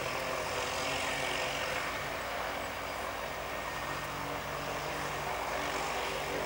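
Pratt & Whitney Canada PT6A-114A turboprop of a Cessna 208B Grand Caravan running steadily at low power with the propeller turning slowly: an even turbine rush with a low propeller hum.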